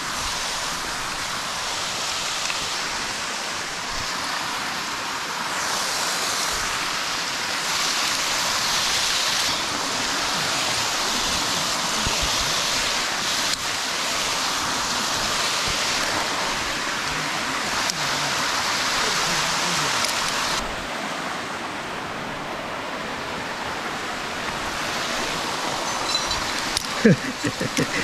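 Steady rush of water from a mountain stream and waterfall. It drops a little in level about 20 seconds in.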